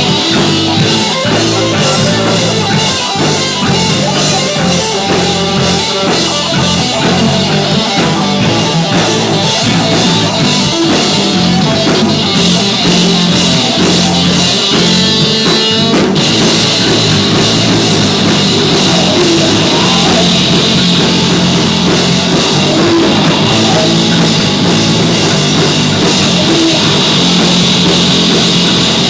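Live rock band playing a loud punk-rock song on drum kit and guitars.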